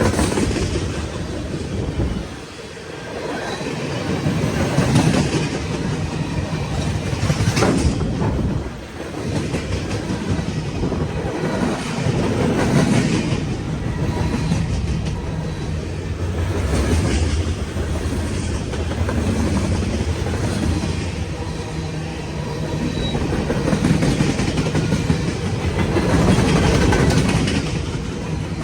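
CSX freight train's cars rolling past, wheels clacking over the rail joints over a steady rumble that swells and eases.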